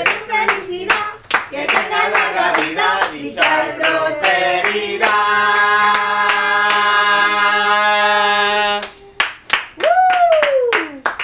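A group of people singing a birthday song to steady hand-clapping, ending on one long held note, followed by a burst of clapping and a falling whoop of a cheer.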